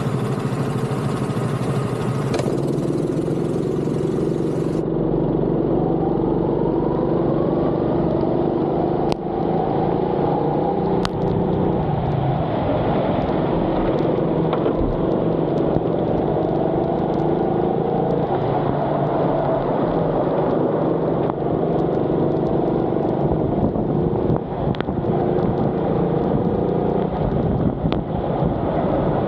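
Go-kart engine running hard on a lap, its pitch rising and falling again and again as the kart accelerates and slows through the corners.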